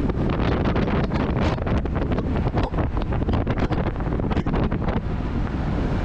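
Series 3 Land Rover driving along the road, heard on board: steady engine and drivetrain noise with wind buffeting the microphone and many irregular small knocks and rattles.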